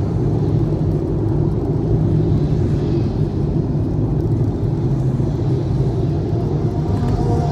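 Steady road and engine noise inside a Toyota car's cabin while cruising on an expressway: an even low rumble with no distinct events.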